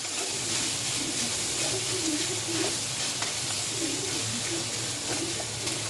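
Leftover rice and pork adobo sizzling steadily as they fry in oil in a pan while being stirred and mixed.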